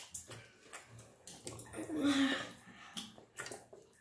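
Wet eating sounds: chewing and lip smacking over saucy food, with scattered small clicks and a brief hum about two seconds in.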